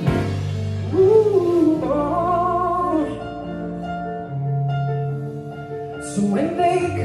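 Live band music: a man singing into a microphone over sustained accompaniment, with the drums and cymbals coming back in near the end.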